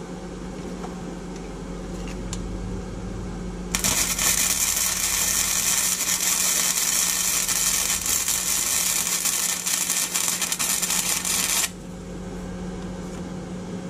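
Electric arc welding a brake-hose tab onto a truck's rear axle housing: the arc's steady crackling hiss starts abruptly about four seconds in and cuts off about eight seconds later. A low steady hum runs underneath.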